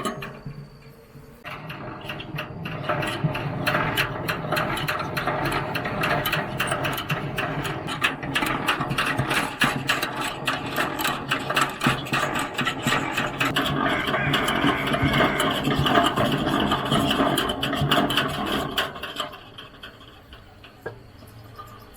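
A geared mechanism running with a steady clattering whir, starting about a second and a half in and stopping shortly before the end.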